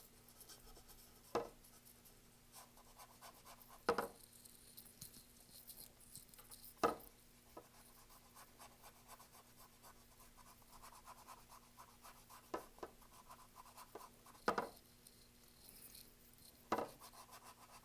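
Faint scratching of a flat paintbrush's bristles being scrubbed back and forth over a canvas, applying acrylic paint, with a handful of brief louder strokes scattered through it.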